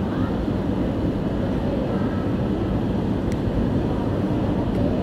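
Busy city street ambience: a steady low rumble of traffic mixed with murmuring voices.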